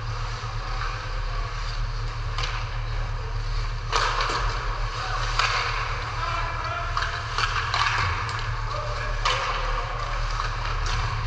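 Ice hockey being played: sharp clacks of sticks and puck and the scrape of skates on ice, four of the clacks standing out, over a steady low hum.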